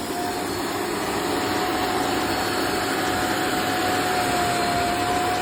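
Upholstery water vacuum cleaner's motor running steadily, with a constant high whine over its rushing air noise.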